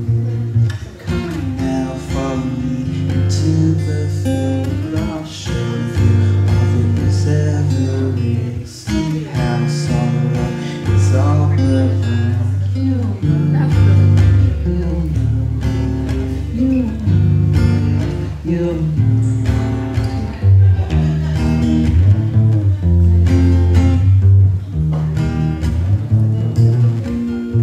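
Acoustic guitar played live, strummed and picked chords over sustained low bass notes, with a male voice singing along at times.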